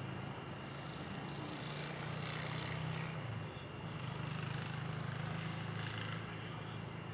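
A steady low mechanical hum over a faint hiss, swelling a little and easing off now and then.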